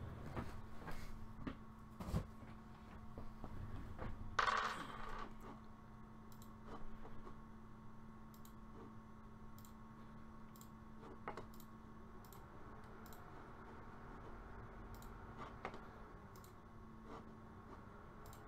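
Quiet room with a steady low hum, a few small clicks in the first couple of seconds and a brief rustle about four and a half seconds in, followed by faint, evenly spaced ticks.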